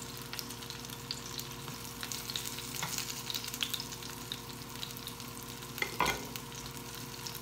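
Fritters shallow-frying in oil in a nonstick pan: a steady sizzle with small crackles while a wooden spatula turns and scrapes them against the pan. There is one short knock about six seconds in.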